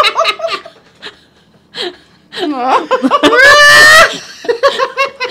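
Several people laughing hard. About two and a half seconds in, one voice breaks into a long, high-pitched laughing cry that rises and holds for about a second, then drops back into short bursts of laughter.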